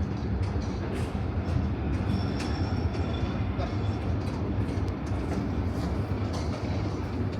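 Train running past: a steady low rumble with faint high-pitched wheel squeal and scattered clicks.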